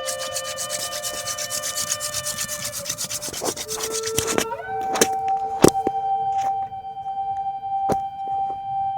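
Mulefat hand-drill spindle spun fast between the palms, grinding against a palm fruit-stalk hearth board in quick, even rubbing strokes. The strokes stop about four and a half seconds in, followed by a few light knocks. This spinning produces a coal in the notch.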